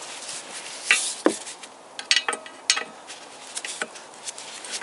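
Hand wrench clinking on the clutch pressure plate bolts as it is fitted and worked: a handful of sharp, separate clicks and knocks, most between about one and four seconds in.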